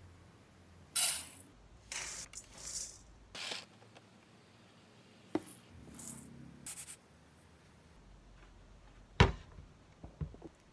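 Dry mixed grains and glutinous barley poured from a scoop and by hand into a stainless steel mixing bowl, in several short rushing pours. About nine seconds in comes a sharp knock, the loudest sound, followed by a couple of lighter knocks.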